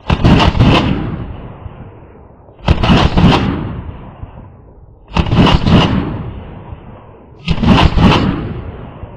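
Vulkan-M bullpup AK-pattern rifle firing four short strings of rapid shots, about two and a half seconds apart, each string trailing off in a long echo.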